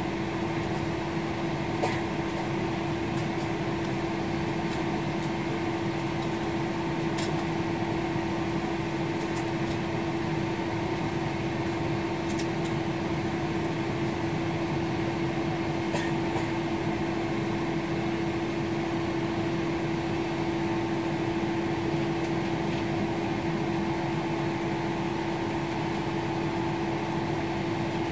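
Steady airliner cabin noise during taxi: the engines at idle and the cabin air-conditioning make an even hiss, with a strong, steady mid-pitched hum throughout. A few faint clicks sound now and then.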